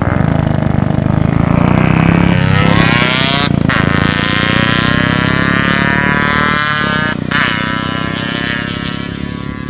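Two single-cylinder motorcycles, a two-stroke Yamaha RX 135 and a four-stroke Royal Enfield Bullet 350, launching from a standstill and accelerating hard. The engine pitch climbs and breaks off briefly twice, about 3.5 and 7 seconds in, as they shift up. The sound fades gradually as they pull away.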